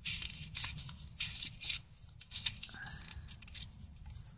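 Paper pages of a spiral-bound road atlas being thumbed through at the corner, a quick run of short rustles and flicks as the pages are leafed.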